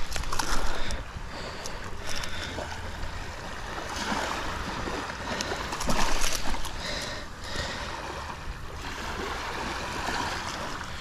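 Steady wind and surf noise at the water's edge, with scattered small clicks and rustles as fishing pliers work a lure out of a landed snook's mouth on the sand.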